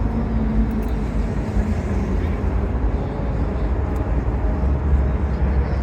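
Steady low rumble of car engines idling, with a faint steady hum under it.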